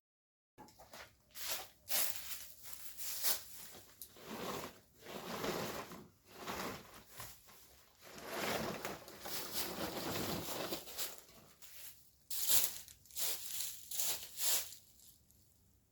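Irregular rustling and crinkling, a string of scuffing noises with a cluster of sharper ones about three-quarters of the way through.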